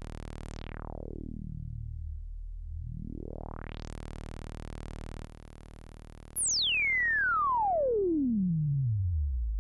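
Korg ARP Odyssey analogue synthesizer holding a low, buzzy note while its filter sweeps shut and then open again. About five seconds in it gets louder, and a single pure whistling tone glides steadily down from very high to very low over the note.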